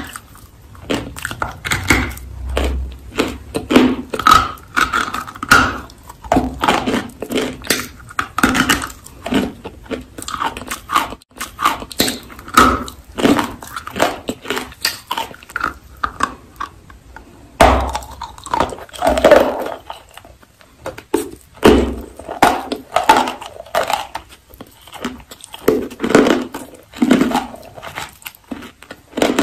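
Close-up crunching and chewing of a bluish-white block of chalk: many sharp, irregular crunches as it is bitten and ground between the teeth, with a few heavier low thuds of biting.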